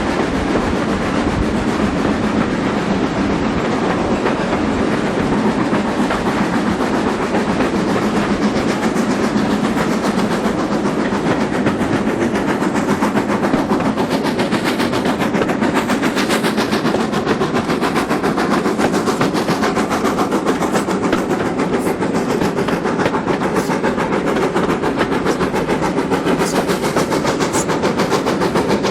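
Coaches of a steam-hauled train running along the line: a steady, loud rumble of wheels on rail with a fast, even clatter.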